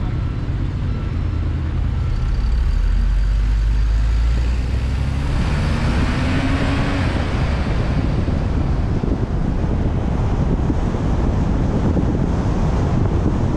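Road and traffic noise of a Honda Odyssey minivan on the move, heard through a roof-mounted GoPro: a steady low rumble, then about halfway through a swell of engine and tyre noise with a short rising tone, followed by choppy wind buffeting on the microphone.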